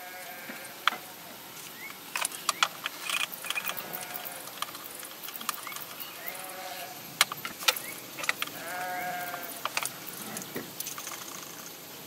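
One-handed bar clamps being fitted and squeezed tight on a freshly glued wooden box: a string of sharp clicks from the clamp triggers and several short squeaks.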